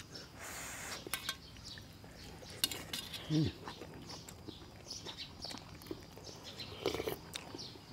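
Spoons and utensils clinking and scraping against bowls and a pot, in scattered light clinks. A brief voice sound comes about three seconds in.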